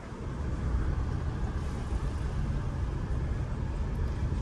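A motor vehicle running, with a steady low rumble of engine and road noise.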